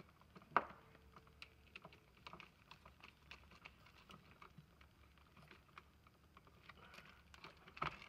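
Faint, scattered small clicks and ticks of wires and a plastic duplex receptacle being handled, with its terminal screws worked with a screwdriver. One sharper click comes about half a second in.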